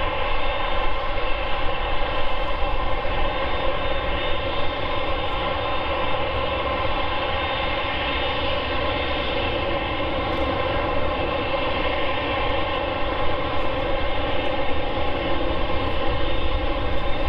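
Boeing 747-8F's four GE GEnx-2B turbofans running at taxi power as the freighter rolls slowly along the taxiway: a steady whine made of several tones over a low rumble.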